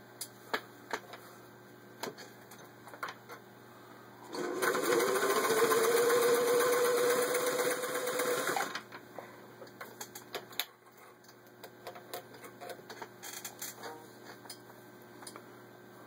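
Singer 401A sewing machine stitching through four layers of vinyl upholstery. Its motor winds up to speed about four seconds in, runs steadily for about four seconds, then stops. Scattered light clicks come before and after the run.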